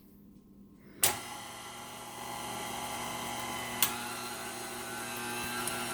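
KitchenAid stand mixer switched on about a second in, its motor running steadily to turn the food grinder attachment's auger before the meat has caught and started grinding. A single sharp click midway.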